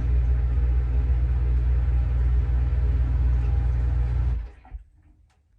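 Whirlpool dishwasher's pump motor humming steadily, heard from inside the tub, then cutting off abruptly about four and a half seconds in.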